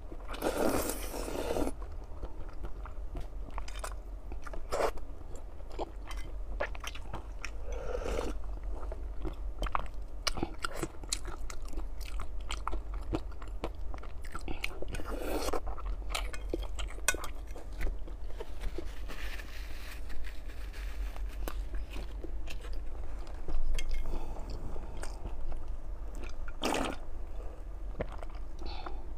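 Close-miked eating sounds: slurping sour-spicy glass noodles (suanla fen) and broth, with chewing and many small wet mouth clicks. Longer slurps come near the start, around halfway and near the end, over a steady low hum.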